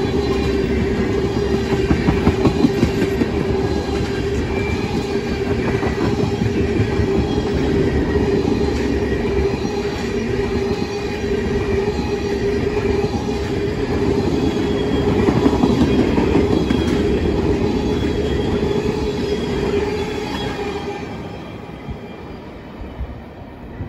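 Tank cars of a freight train rolling past close by: steady rumble of steel wheels on rail with a sustained hum and faint wheel squeals, fading over the last few seconds as the end of the train moves away.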